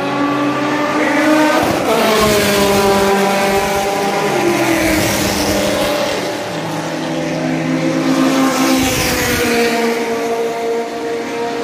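Race car engines running hard past the grandstand, their pitch rising as they accelerate and dropping as they go by, with one sharp pass-by drop about two seconds in.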